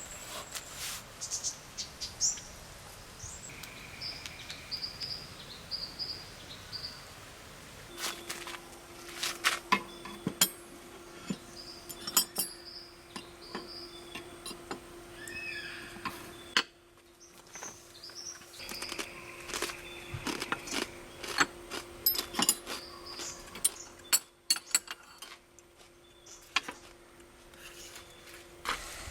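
Birds chirping in short calls over a run of sharp clicks and knocks, with a steady low hum that comes in about a quarter of the way through.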